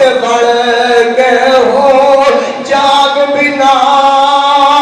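A man's voice chanting long, drawn-out melodic notes, in the manner of sung Punjabi Sufi verse. The phrase breaks off briefly about two and a half seconds in and again a second later.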